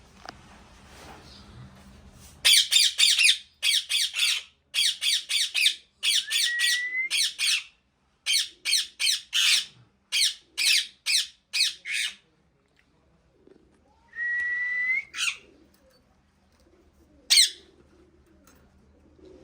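Parrot squawking: a long run of loud, harsh calls, several a second, then a short whistle and one last squawk near the end.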